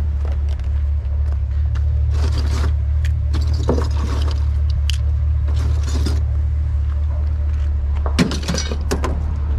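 Vehicle engine running with a steady low rumble, with scattered clicks and rattles over it and a short cluster of knocks near the end.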